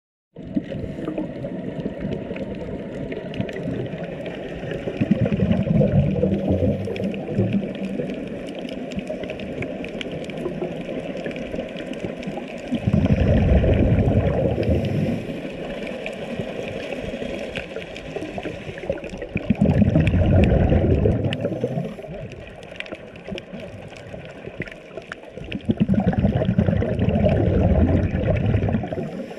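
Underwater ambience on a shallow coral reef: a steady watery hiss with faint crackling, broken every six to seven seconds by a loud bubbling rush lasting about two seconds.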